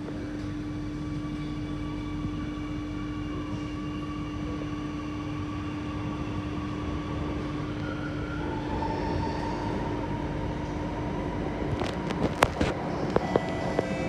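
Alstom Metropolis C830C metro train running between stations, heard from inside the carriage: a steady rumble with a constant low hum and fainter higher whining tones. Several sharp clicks and knocks come near the end.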